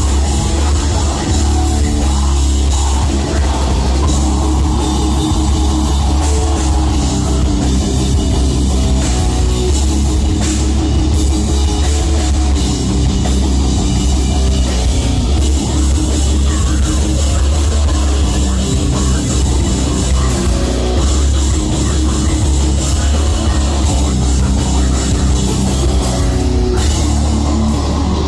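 Live heavy metal band playing loud, with a drum kit and heavy bass, without a break.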